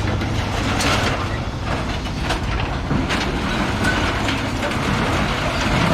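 Heavy scrapyard machine working a load of scrap metal: a steady low machine rumble with irregular metal clanks and crunches about once or twice a second.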